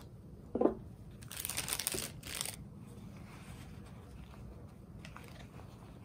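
A short knock about half a second in, then about a second of crinkling and rustling of wrapping being handled; quiet room tone after.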